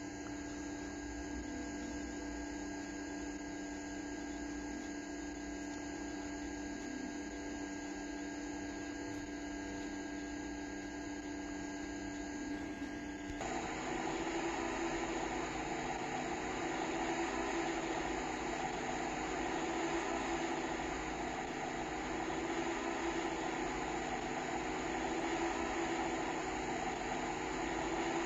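Car engine idling: a steady hum that about halfway through turns louder and rougher, its pitch wavering slowly up and down.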